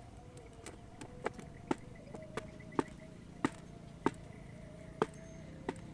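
A series of sharp, uneven knocks or taps, roughly one every half second to second, with the loudest toward the second half, over a faint steady hum.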